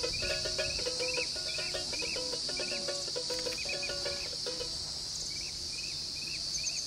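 Outdoor ambience dominated by a steady, high insect drone, with short animal calls repeating about twice a second over it; the lower calls stop about two-thirds of the way through.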